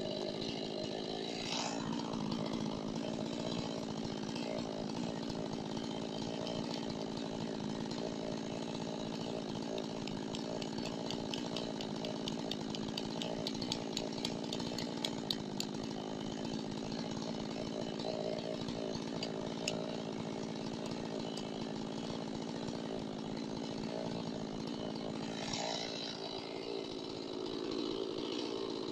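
Chainsaw engine running steadily, with a run of sharp ticks in the middle.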